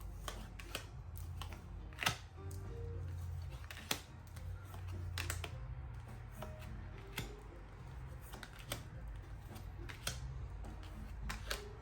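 A deck of tarot cards being mixed by hand: irregular crisp card clicks and slaps, several a second at times, over soft background music.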